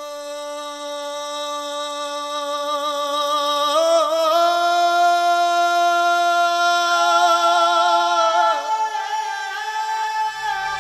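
Song intro: a wordless voice holding long notes with vibrato, stepping up in pitch about four seconds in, with a second line of notes layered in later. Backing music with a bass comes in near the end.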